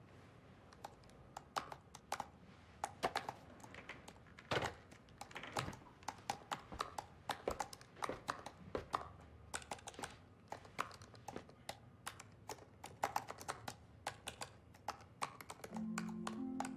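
Typing on a computer keyboard: irregular bursts of key clicks. Background music comes in near the end.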